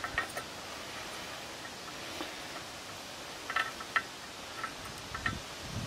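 Faint, scattered small clicks and ticks of a metal continuity washer being worked into a stainless steel propeller hub by hand, over a steady hiss, with a couple of soft thumps near the end.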